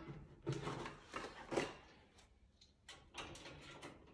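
Faint clicks and knocks from the token mechanism of an Orion needle-exchange vending machine being worked to dispense a pack, a few in the first second and a half and a light rattle near the end.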